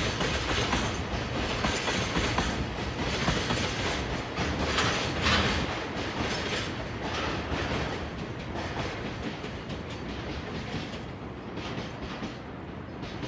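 Freight train of oil tank cars rolling past, its wheels clacking over the rail joints amid steady rumble, the sound slowly dying away in the second half as the train recedes.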